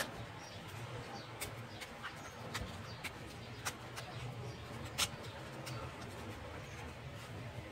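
Plastic back cover of a Vivo Y12s being unclipped by hand: a series of sharp plastic clicks and snaps as the retaining clips let go around the edge, the loudest about five seconds in.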